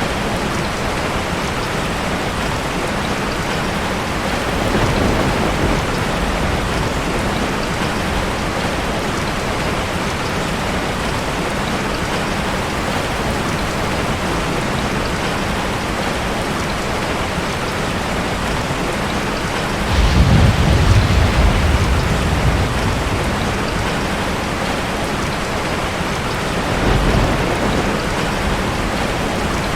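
Steady heavy rain with rolls of thunder: a soft rumble about five seconds in, a louder one about two-thirds of the way through lasting a few seconds, and a shorter one near the end.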